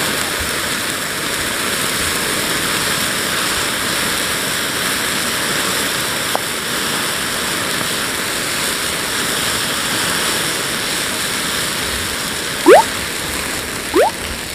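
Hot candle-wax fire flaring in a bowl after water hit the wax, its big flame rushing with a steady, even noise. Two short rising whistles sound near the end, the first one loud.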